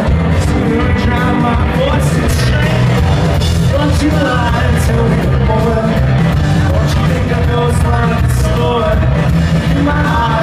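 Rock band playing live: electric guitars, bass and drums, steady and loud, recorded from the audience in a theatre hall.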